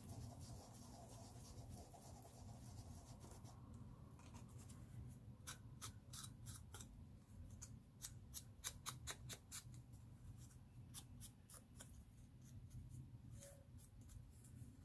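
Foam ink blending tool dabbed on an ink pad and swiped along the edges of a paper cut-out: faint, short scratchy strokes, several a second, starting about five seconds in and coming in bunches.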